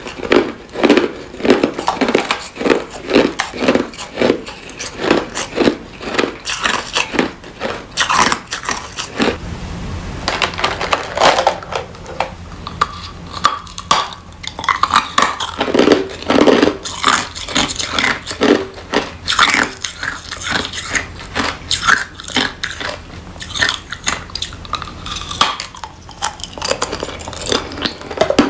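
Ice crunched and chewed between the teeth, close up: a fast run of sharp, crisp crunches. At first it is crushed ice eaten off a spoon; from about nine seconds in, larger chunks of clear ice are bitten and chewed.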